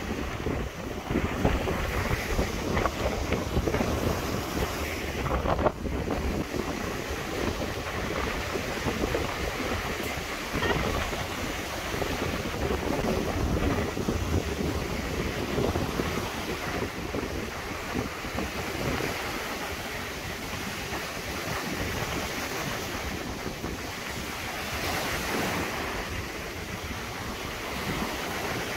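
Wind buffeting the microphone over small Baltic Sea waves breaking on a sandy shore: a continuous, uneven rushing noise.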